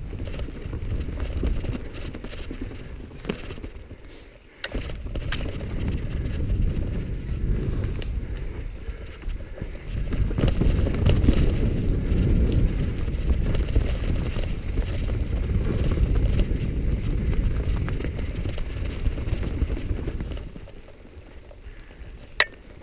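Mountain bike ridden along a dirt forest singletrack, close to the microphone: knobby tyres rolling over roots, stones and rock, with the frame, chain and parts rattling and knocking over the bumps. The noise eases about four seconds in, is loudest in the middle, and drops off near the end with one sharp click.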